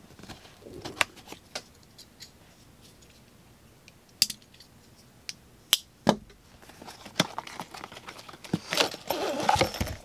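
A small folding knife slitting the seal of a cardboard box, with light scratches and clicks, then a few sharp clicks around the middle. Near the end comes a steady rustle of cardboard and a nylon case being handled as the box is opened and emptied.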